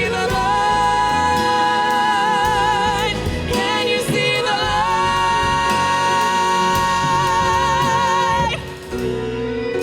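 Long held sung notes with vibrato over a live band with strings, cutting off about eight and a half seconds in, after which the instruments carry on alone.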